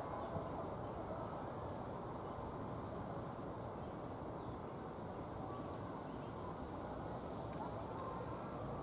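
Quiet outdoor background noise with a faint, high chirping that repeats about three times a second.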